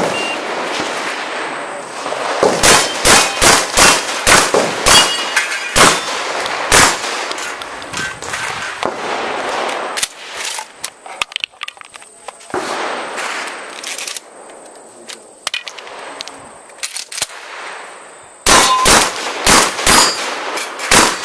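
A pump-action 12-gauge shotgun firing a rapid string of about ten shots at steel targets, then a quieter stretch of clicks as shells are loaded and the action is worked, then another quick string of shots near the end. Steel plates clang when they are hit.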